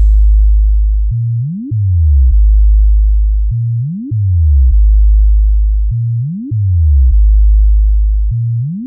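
Loud synthesized low-frequency bass test tone for a speaker sound check. A deep steady note sweeps quickly up in pitch and steps back down, repeating about every two and a half seconds, four times.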